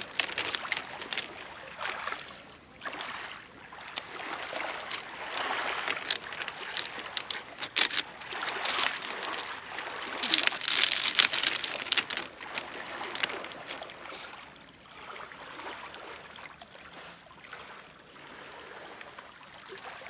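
Small sea waves lapping and splashing at the water's edge, in surges every few seconds, settling to a quieter wash in the last few seconds.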